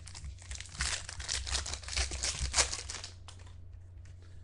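Trading-card pack wrapper crinkling and tearing as a pack is ripped open and the wrapper crumpled, a dense crackle for about three seconds that then stops.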